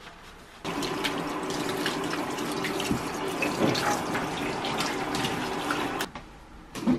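Handheld shower head spraying water onto a soapy dachshund in a plastic dog bathtub, rinsing off the shampoo. The water comes on suddenly about half a second in, runs steadily, and cuts off about a second before the end.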